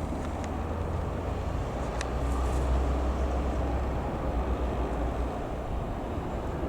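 Steady low drone of a distant single-engine piston light aircraft, swelling slightly a couple of seconds in, with a faint click or two.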